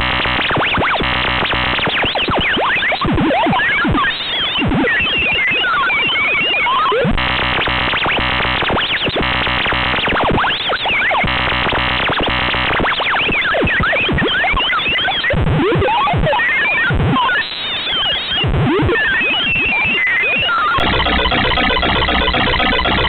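Computer-generated synthesized audio from a C++ effects program, in the manner of bytebeat: repeating blocky patterns laced with rapid rising and falling chirps. About 21 seconds in it switches abruptly to a different, denser repeating pattern.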